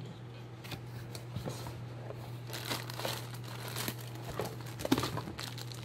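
Clear plastic packaging bag crinkling in irregular crackles as a wrapped part is handled and lifted out of a cardboard box.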